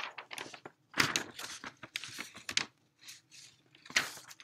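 Sheets of paper rustling and crinkling as they are handled close to the microphone, in several bursts, the loudest about one, two and four seconds in.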